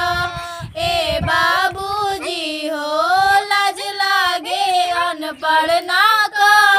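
A high voice singing a Bhojpuri folk song, drawing out long, wavering notes between lines of the lyric.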